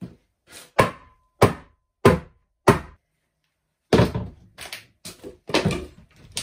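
Hammer blows on an old wooden cupboard: five sharp knocks about two-thirds of a second apart. After a short pause comes a quicker run of knocks and thuds as the rotten cupboard is wrenched at.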